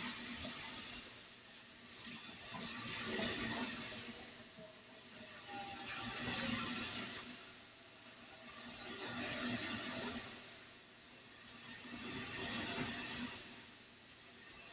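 Water running from a kitchen tap into a pan, a steady rushing that swells and eases about every three seconds.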